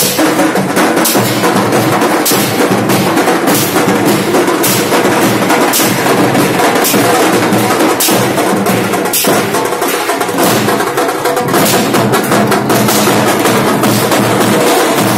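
Indian street brass band playing loud, steady processional music. A driving drum beat runs under held band tones, with sharp accented hits roughly once a second.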